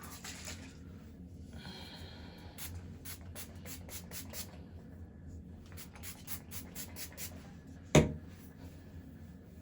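Pump spray bottle of heat protectant spritzing onto hair in two runs of quick sprays, about seven each, with hands rubbing through the hair. A single sharp knock about eight seconds in.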